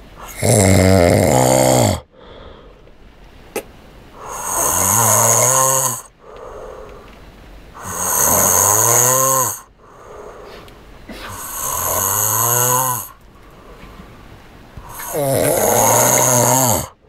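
A boy snoring in his sleep: five snores about three and a half seconds apart, each a buzzing breath lasting about two seconds, with quiet breathing between them.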